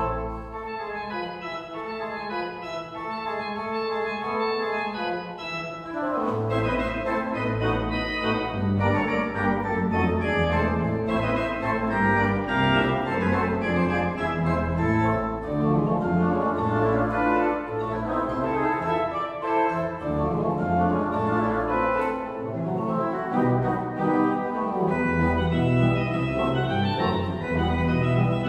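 Goll pipe organ (2010) playing a fast scherzo in quick, busy notes. About six seconds in, deep bass notes come in and the sound grows louder.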